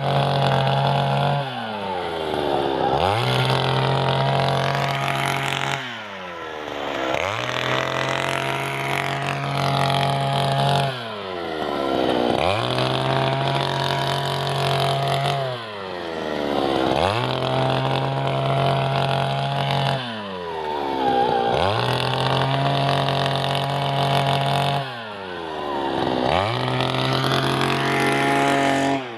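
Engine-driven earth auger drilling planting holes in soil: the engine runs continuously, its speed dipping sharply and recovering about every four to five seconds.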